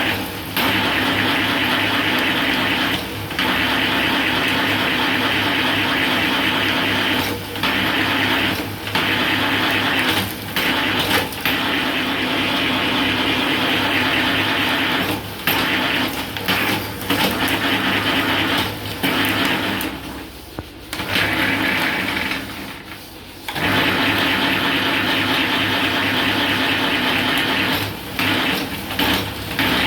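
Motor-driven bamboo satay-skewer machine running as it shaves bamboo strips, a steady mechanical whir with a low hum, dropping briefly every few seconds and easing off twice about two-thirds through.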